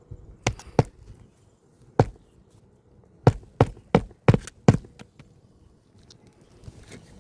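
Hand hammer striking roofing nails in weathered asphalt shingles: about eight sharp blows, two near the start, one about two seconds in, then a quick run of five.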